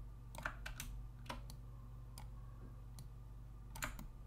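Irregular, scattered clicks of a computer mouse and keyboard, about eight in all, the loudest near the start and just before the end, over a low steady hum.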